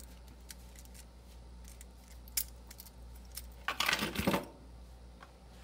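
Small metallic clicks as a laminated brass Master Lock padlock with a short chain attached is handled, then a brief burst of jangling metal clatter about four seconds in as the lock and its chain are put down.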